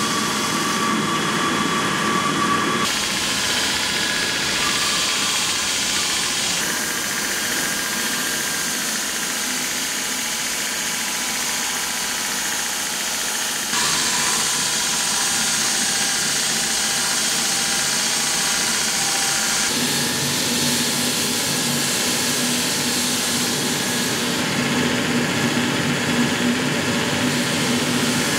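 Steady roar of a gas forge burner running, with abrupt shifts in tone several times.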